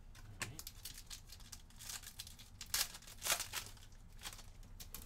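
Foil wrapper of a Panini basketball card pack being torn open and crinkled by hand: a run of irregular crackling rips, loudest twice around the three-second mark.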